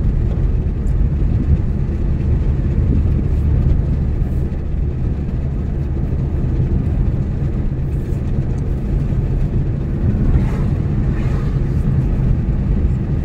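Steady low rumble of road and engine noise heard inside the cabin of a car driving along a city street.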